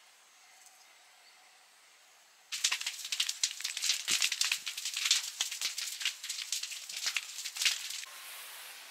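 Dense crackling and rustling that starts suddenly about two and a half seconds in and stops abruptly near the end, leaving a soft steady hiss.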